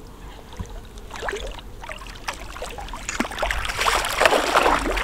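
A hooked carp thrashing and splashing at the water's surface as it is drawn over a landing net, in scattered splashes that build to a louder, continuous splashing near the end.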